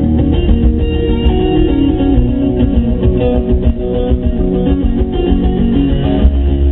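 Music with a guitar melody played loud through a car audio system, its two 15-inch subwoofers pushing heavy, continuous bass.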